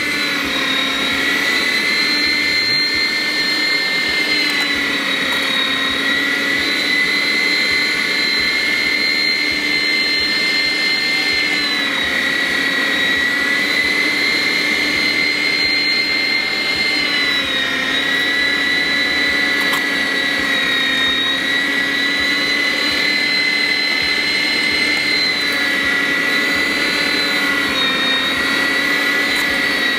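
Zigmund & Shtain ZMG-010 700-watt electric meat grinder running loud while grinding meat into mince: a steady high-pitched motor whine that dips slightly in pitch a few times.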